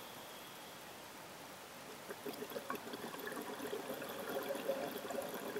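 Scuba diver's exhaled bubbles gurgling out of the regulator underwater, starting about two seconds in after a quieter stretch and running on as a busy, crackling bubbling.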